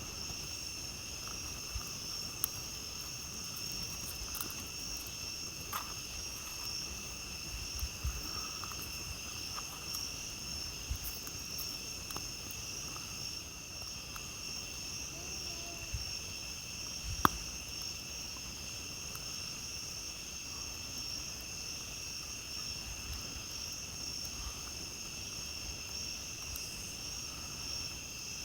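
Night insects chirping steadily in several high pitches, over a campfire crackling with scattered small pops and one sharp, louder pop a little past halfway.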